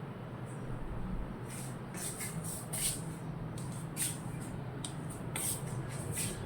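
Parrots eating rice: about a dozen short, high, hissy sounds at irregular intervals over a steady low background hum.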